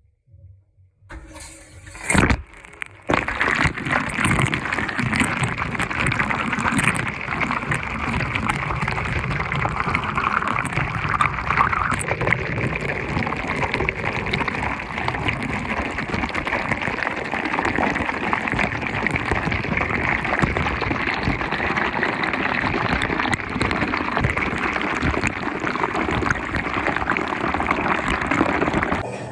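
Washing machine running with water rushing into the drum, a steady noise that starts about three seconds in after a short knock.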